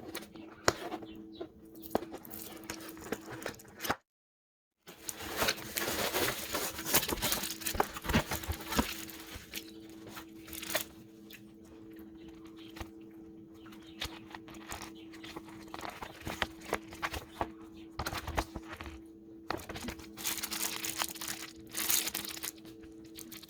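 Plastic packaging crinkling and rustling in irregular bursts as the box is opened and handled, over a steady low hum. The sound drops out completely for about a second, twice.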